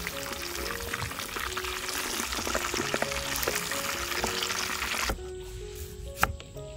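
Whole catfish deep-frying in hot oil in a wok: a dense, steady crackling sizzle that stops abruptly about five seconds in. Then a knife slicing shallots on a wooden cutting board, with one sharp chop near the end, over light background music.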